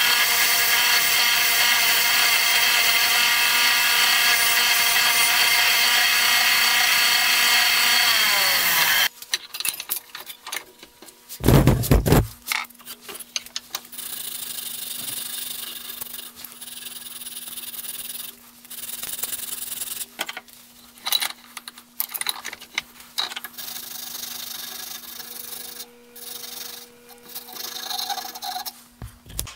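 A bench grinder with a wire wheel runs steadily, then winds down and stops about nine seconds in. After a loud thump, a wooden screwdriver handle is hand-sanded with a sanding block in uneven scratchy rubbing strokes.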